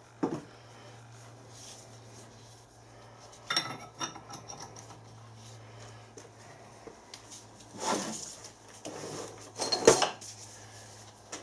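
Steel bearing outer race (track) being handled and set into the bore of a cast-iron half-shaft bearing housing held in a vice: a handful of separate metallic clinks and knocks, the loudest near the end. The race is a slack fit in the bore.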